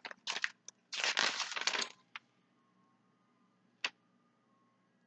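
Paper flyers rustling and crinkling as they are handled, in a few short bursts and then a longer rustle lasting about a second. A light tap follows, and a sharper click near the end.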